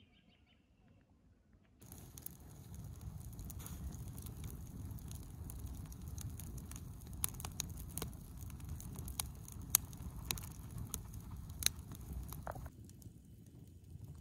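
Wood campfire burning in a steel fire ring, crackling with frequent sharp pops over a low steady noise. Near the end the popping stops and only a quieter low noise remains.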